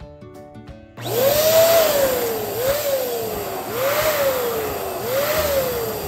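Electric balloon pump inflating a long spiral balloon. The motor starts suddenly about a second in and whines, its pitch jumping up and then sinking slowly four times, with a rush of air at each rise.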